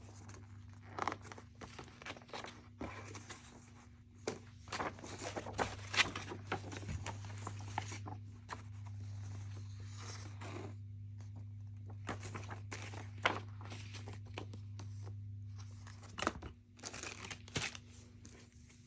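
Paper rustling and crinkling with irregular small clicks as an instruction booklet is handled and its pages turned, over a steady low electrical hum.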